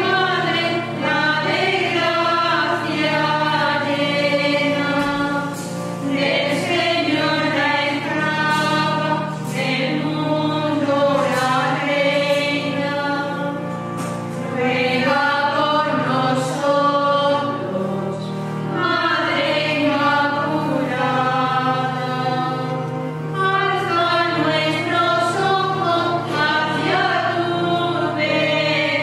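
Nuns singing a hymn together in chorus, in sung phrases of a few seconds each over a steady low held accompaniment.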